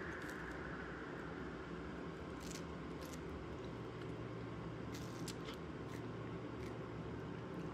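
A ringing tone dies away at the very start, leaving a quiet room with a low steady hum and a scatter of faint handling clicks.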